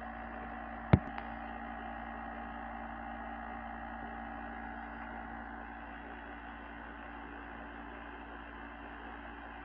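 Steady electrical hum with a few held tones in it, and a single sharp click about a second in.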